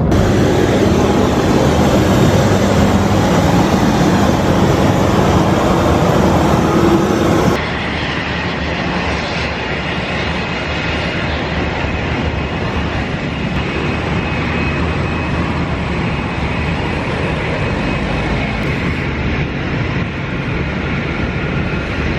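Cessna 172's piston engine and propeller running steadily: a loud, dense drone with wind noise. The tone shifts abruptly about seven and a half seconds in.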